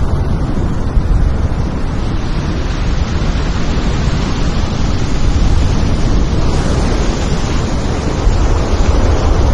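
Heavy breaking surf, a steady rumbling rush of whitewater, with wind buffeting the microphone.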